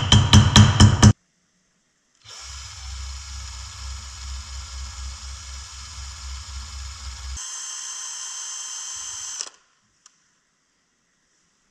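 Cordless drill running for about five seconds with a pulsing low drone under its whine. About seven seconds in it changes to a thinner, higher whine for two seconds, then stops.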